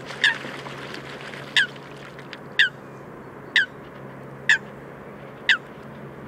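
Great crested grebes calling in the weed-dance courtship ceremony: a short call that drops in pitch, repeated about once a second, six times.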